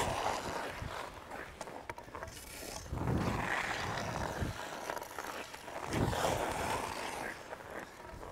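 Hockey skate blades scraping and carving on ice as a skater does backward crossovers, each push a swell of hissing scrape, the strongest about three and six seconds in.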